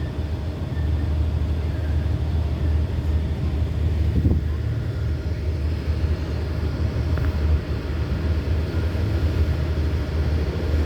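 Hitachi diesel locomotive's engine running steadily, a low rumble throughout.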